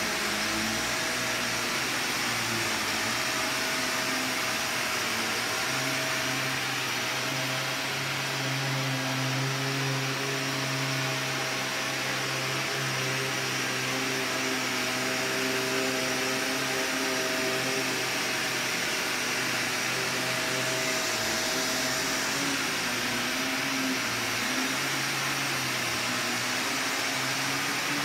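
Vax Commercial VCU-03C bagged upright vacuum cleaner running on carpet: a steady motor hum over a wide hiss of rushing air.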